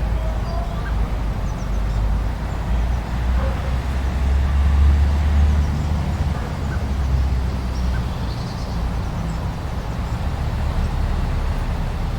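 Strong wind rumbling low and steady, swelling about four to six seconds in, with a few faint short animal calls above it.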